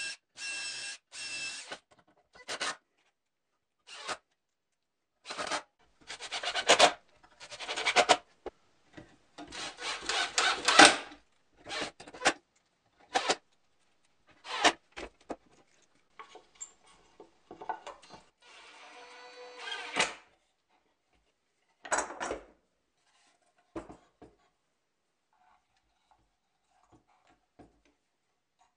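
Cordless drill boring holes through plywood in a series of short separate bursts, its motor whine rising through each, with a few sharp knocks of wood being handled between them.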